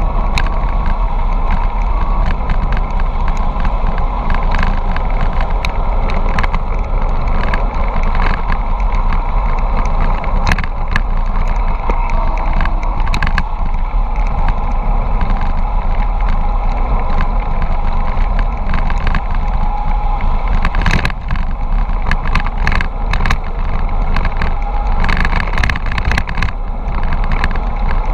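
Steady wind rush on the camera microphone of a bicycle descending fast downhill, with tyre noise and scattered sharp clicks and rattles from the bike over bumps, coming in two clusters in the second half.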